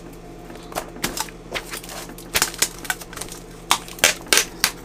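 Cardboard shipping box and packing materials being handled, an irregular run of clicks, crinkles and knocks.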